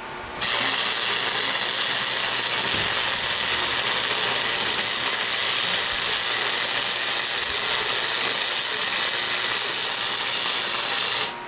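Electric arc welding: one continuous weld run, a steady sizzling hiss that starts about half a second in and cuts off just before the end.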